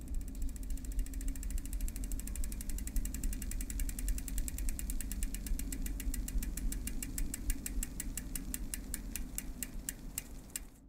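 A spinning bicycle wheel's hub ratchet ticking as the wheel coasts down, the clicks slowing steadily to about five a second near the end, over a steady low hum.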